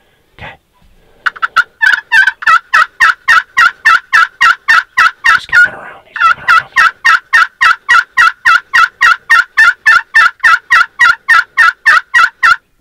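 Turkey calling: a long, even series of loud, short yelp-like notes, about four a second, with a brief break about halfway through.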